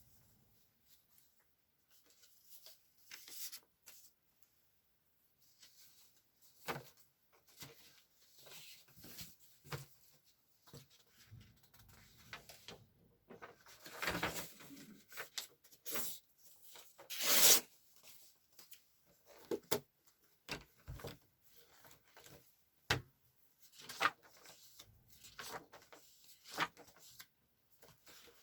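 Desk handling sounds at a study session: scattered rustles of paper and light knocks and clicks of objects being moved, separated by near-silent gaps. The loudest rustles come about halfway through.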